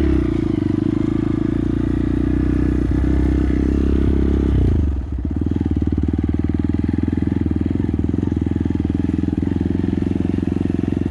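Motorcycle engine running steadily under way, with a brief drop in level about five seconds in before it settles back to a steady note.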